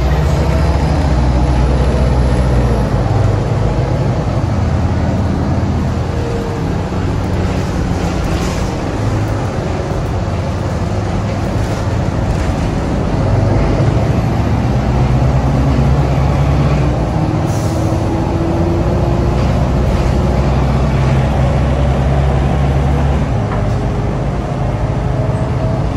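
Cabin sound of a 2004 NABI 40LFW transit bus under way: its Detroit Diesel Series 50 diesel engine drones low, swelling and easing several times as the bus pulls and slows, over road rumble with a few light knocks and rattles.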